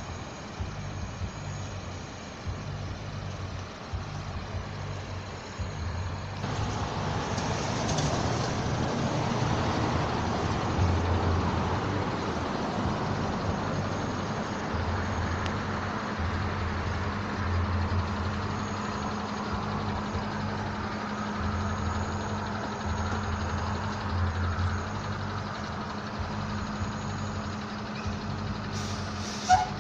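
Motor vehicle traffic noise that gets louder from about six seconds in, with a steady engine hum through the second half.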